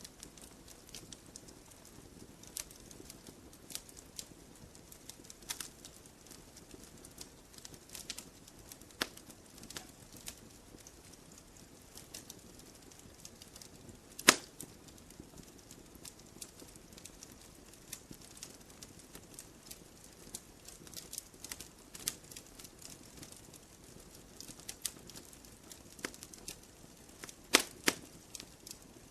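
Burning logs in a campfire crackling: irregular sharp snaps and pops over faint steady background noise, with one loud pop about halfway through and a cluster of loud snaps near the end.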